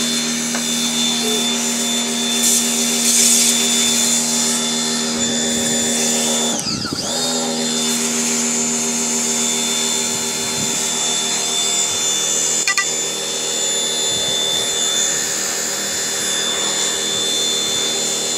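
Electric pressure washer running steadily, its motor hum under the hiss of the spray jet. About seven seconds in, the motor's pitch drops briefly and then picks back up.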